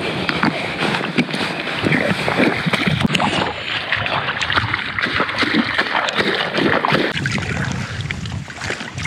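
Water lapping and splashing against a float tube, with many small, quick splashes.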